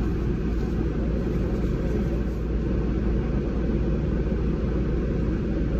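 Steady low rumble and hiss inside a car's cabin: the idling engine and the air-conditioning blower running.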